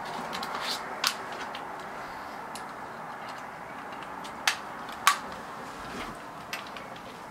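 Camera gear and cables being handled around a flight case: small clicks and knocks, with three sharper clicks about one second, four and a half and five seconds in, over a steady hiss.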